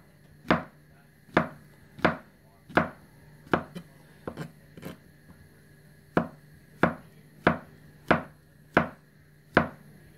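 William Collins NK knife slicing mushrooms on a plastic cutting board, the blade knocking down onto the board in a steady rhythm of about three cuts every two seconds. A little before the middle the cuts give way to a few lighter taps, then the steady rhythm resumes.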